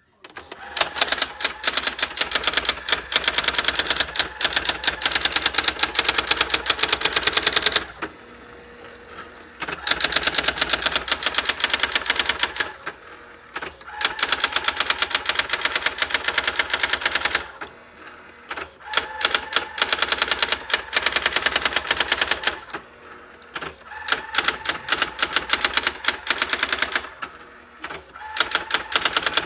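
Brother GX-6750 electronic daisy-wheel typewriter printing a built-in features demonstration on its own: runs of very fast, even clicking, one line at a time, broken every few seconds by short pauses filled only by a faint hum.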